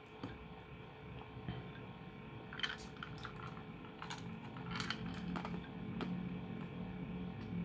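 Scattered light clicks and knocks from a glass of lemon water being picked up, drunk from and held, in small clusters about three and five seconds in.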